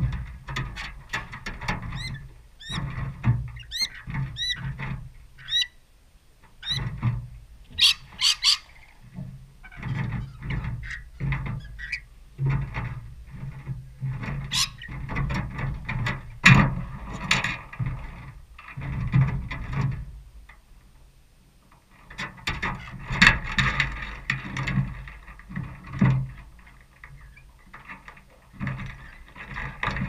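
Rainbow lorikeets at a feeding trough: short, high chirping calls repeated in quick runs, mostly in the first few seconds. Sharp clicks and low knocks run throughout as the birds peck and shuffle over the metal trough close by.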